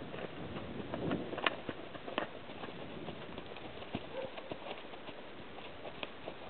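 Horse's hooves walking on arena sand: irregular soft hoofbeats with a few sharper clicks, the clearest about one and a half and two seconds in, over a steady hiss.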